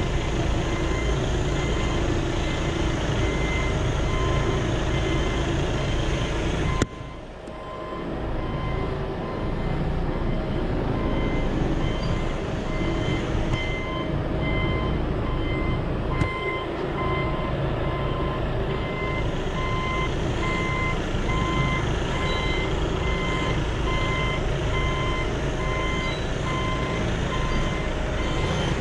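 Truck reversing alarm beeping steadily in even, repeated beeps as the tractor-trailer backs its container trailer, over the low running of the truck's diesel engine. The sound dips sharply and is muffled for a moment about seven seconds in.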